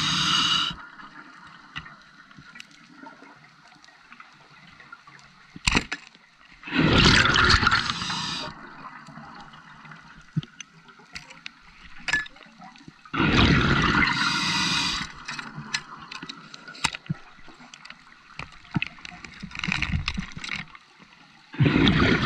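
Scuba diver's regulator underwater: exhaled bubbles rushing out in loud bursts of about two seconds, three times, with a quieter crackle of small clicks between breaths. A single sharp knock sounds about six seconds in.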